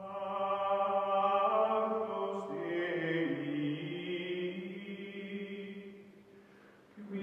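Outro music of long, held chant-like voices, the notes shifting in pitch every second or so, fading out about six seconds in.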